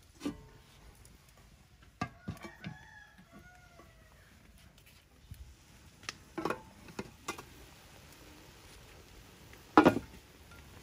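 A rooster crowing once, a couple of seconds in, with a few scattered knocks of metal cookware; near the end a sharp clank as the aluminium lid comes off the steaming wok of clams.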